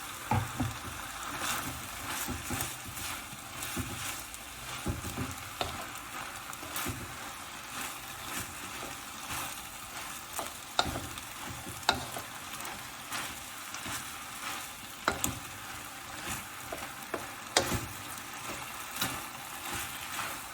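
Mince and vegetables stir-frying in a wok: a steady sizzle, with a utensil scraping and clacking against the wok as the food is stirred. Several sharp knocks stand out in the second half.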